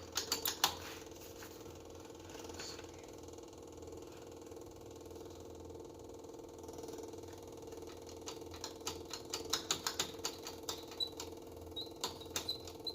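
Electric fuel pump on a 1988 Tennant 255 sweeper ticking with the key on, over a steady low hum. There are a few clicks at the start, and from about eight seconds in the ticks come quickly, several a second. The pump is not pumping fuel properly, which the owner takes to mean the sweeper needs a new fuel pump.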